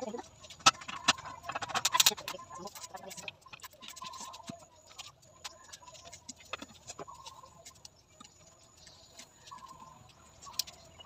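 Sharp clicks and knocks of firewood being handled at an open wood-fire hearth, densest and loudest in the first couple of seconds and sparser after. Chickens cluck faintly now and then.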